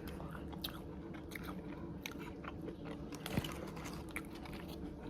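Close-up eating sounds: chewing and crunching of food, with many small clicks and one sharper click about three and a half seconds in.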